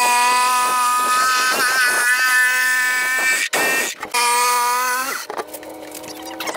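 Jigsaw cutting through plywood, its motor running with a steady whine that dips briefly in pitch under load a little before two seconds in. It cuts out briefly about three and a half seconds in, runs again, then stops about five seconds in.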